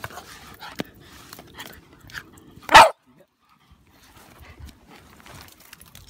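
Jack Russell terrier giving a single loud bark about three seconds in, among faint small clicks and rustling.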